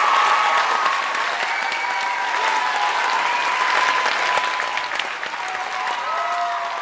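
Sustained applause from a concert audience and choir, a dense steady clapping.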